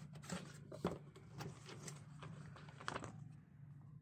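Paper and cardboard being handled as a brochure is lifted out of a cardboard box: rustling with several short, sharp taps and crinkles, over a steady low hum.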